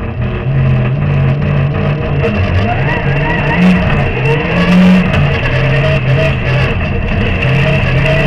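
Rally car engine heard from inside the cabin, accelerating hard, its pitch climbing and dropping back at gear changes, with grit and stones from the dirt surface ticking against the car.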